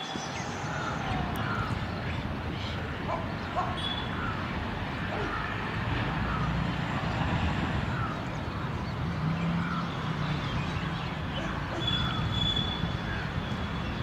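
Steady outdoor background noise with a low rumble and faint, indistinct voice-like murmur. Brief high, thin whistling tones come about four seconds in and again near the end.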